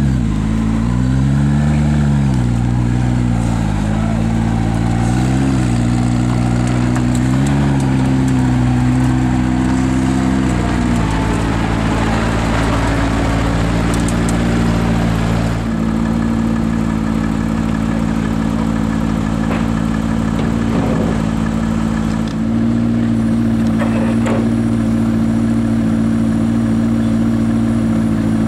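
McLaren P1's 3.8-litre twin-turbo V8 revving lightly in a few short rises and falls for the first ten seconds or so, then idling steadily.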